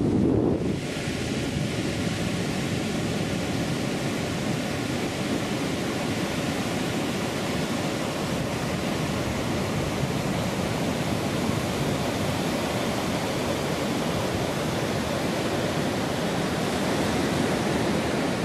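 Ocean surf washing onto a sandy beach, a steady even rush of noise.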